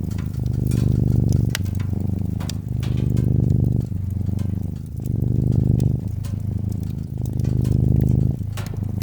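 Domestic cat purring, a steady low rumble that swells and eases with each breath about every two seconds, over the scattered snaps and crackles of a wood fire.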